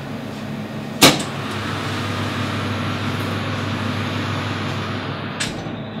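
CTS climate test chamber running cold, a steady hum from its fan and refrigeration. A loud click comes about a second in and a fainter one near the end.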